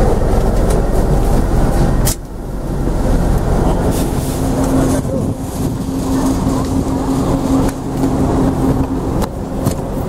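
Bus engine idling with a steady low hum and rumble, with a sharp break about two seconds in.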